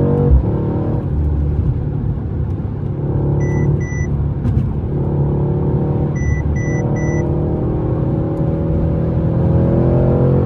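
Mercedes-AMG C63 S engine running on the move, its pitch rising as the car accelerates over the last few seconds. A low thump just after the start, and a short electronic beep sounding twice, then three times.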